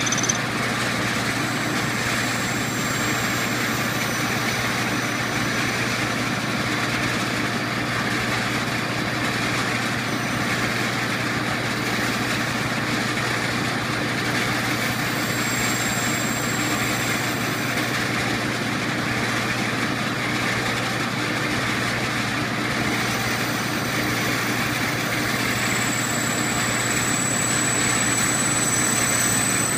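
Metal lathe running steadily while a home-made ball-turning tool cuts a ball end on brass stock, a steady motor hum under the noise of the cut. A faint high whistle comes and goes, a few seconds in, in the middle, and again near the end.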